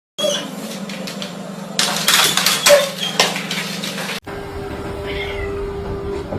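Domestic cat meowing over a steady low hum, with several short noisy bursts in the first few seconds. After a cut about four seconds in, a steady tone runs with a faint call over it.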